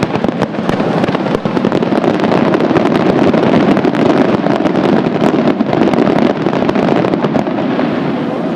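Fireworks going off in a dense barrage: many rapid bangs and crackles run together into a continuous rattling roar that eases a little near the end.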